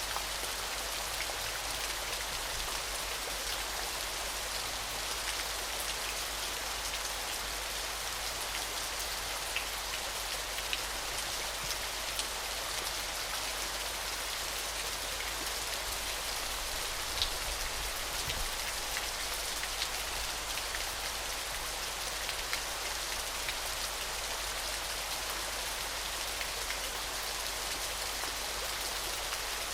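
Falling water splashing: a steady, high, even hiss with scattered small drop ticks, rain-like in character.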